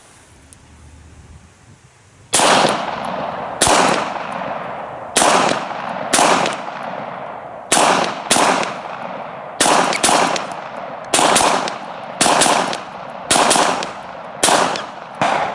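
Beretta 92X Performance 9mm pistol firing a string of about fourteen shots, starting about two seconds in, many of them fired as quick double taps.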